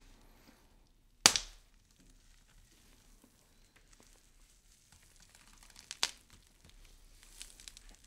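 A loud sharp crack about a second in, then faint scattered crackling and clicks, with a second sharp click at about six seconds and a small cluster of ticks near the end.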